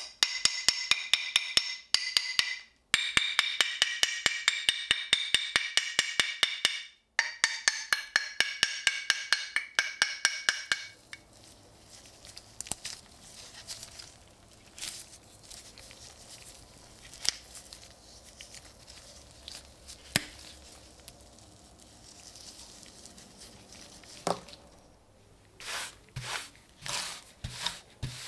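A small hammer tapping rapidly on the rusted steel head of an Austro-Hungarian M1896 military pickaxe, about four blows a second in runs of a few seconds, each blow ringing, knocking the rotted old handle wood out of the eye. After about eleven seconds the tapping stops, giving way to quiet handling and crumbling of the old wood with occasional small clicks.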